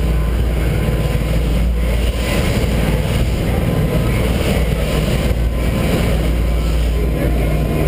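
A boat's engines running steadily at speed, with the rush of wind and churning wake water over them.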